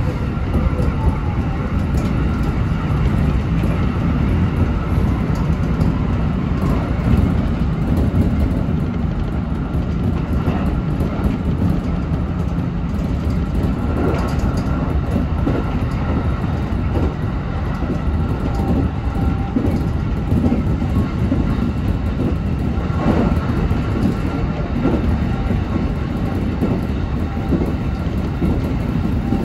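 Local electric train running between stations, heard from inside the front car: a steady rumble of wheels on rail with irregular clacks over the rail joints.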